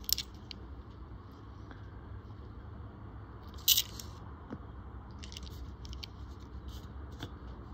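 Australian one-dollar coins handled by fingers on a rubber mat: short sharp clicks and scrapes, the loudest just after the start and a little under four seconds in, with lighter ticks later, over a low steady hum.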